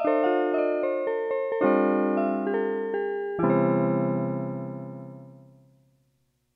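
Chords played on a Yamaha PS-6100 home keyboard in a piano-like voice. A last chord comes about three and a half seconds in and fades away to silence before the end.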